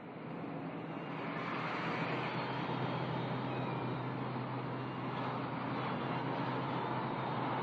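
Road traffic: car engines and tyre noise making a steady rush that swells over the first couple of seconds and then holds, with a steady low hum under it.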